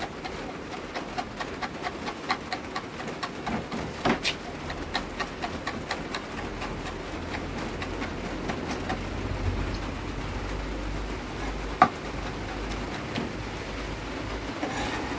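Chef's knife chopping a small chili on a plastic cutting board: quick light taps, several a second, through the first half, then fewer, with one sharper knock near the end. A low rumble builds underneath in the second half.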